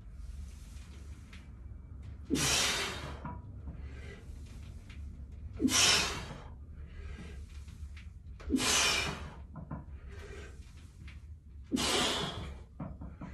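A weightlifter breathing hard through a set of barbell back squats: four loud, hissy breaths about three seconds apart, over a steady low hum.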